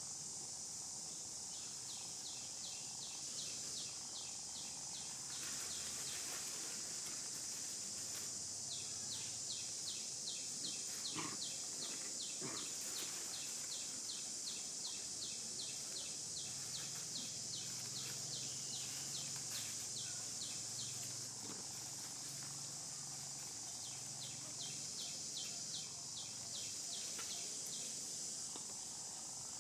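Steady high-pitched drone of insects, with a rhythmic ticking call about three or four times a second that starts and stops several times.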